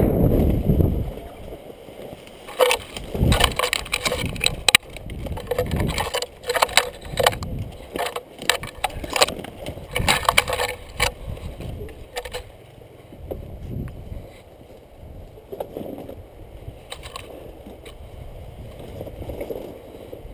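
Pine branches scraping and snapping against the camera and clothing as someone pushes through dense pine scrub. A quick run of sharp crackles in the first half thins to a quieter rustle later. A low rumble of wind or handling on the microphone comes at the start.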